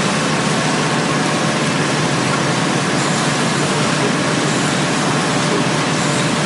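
Automatic facial tissue packing machine running: a steady, even mechanical noise with no pauses or distinct strokes.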